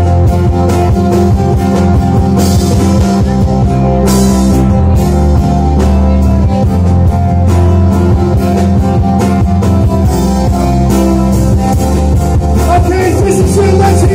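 Live rock band playing an instrumental passage on bass guitar, guitars and drums with a steady beat; near the end a singer's voice comes in over the band.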